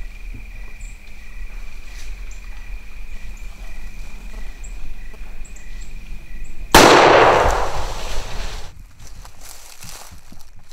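Insects chirping steadily, then, about seven seconds in, a single loud rifle shot whose echo dies away over about two seconds: the shot that drops the feral hog.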